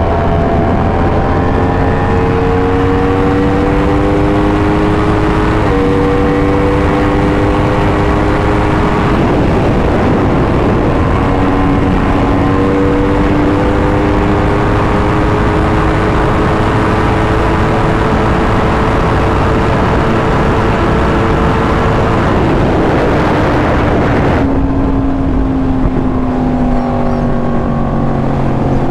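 2020 Yamaha R1's crossplane inline-four engine through an SC Project exhaust, heard while riding: the engine note climbs steadily under load with a quick upshift about six seconds in. Near the end the rider backs off and the note falls away.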